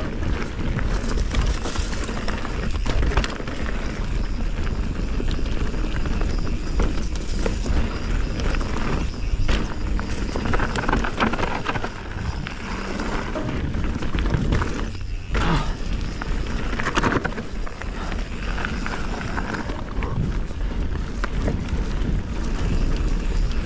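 Canyon Spectral 29 mountain bike riding fast down a dry, leaf-strewn dirt singletrack. Tyres roll over the dirt while the chain and frame rattle irregularly over bumps, and wind rumbles on the chest-mounted camera.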